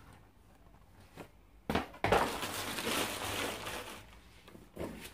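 A sharp knock, then about two seconds of crackling and crinkling as a clear plastic packaging bag is handled and crumpled. A smaller rustle follows near the end.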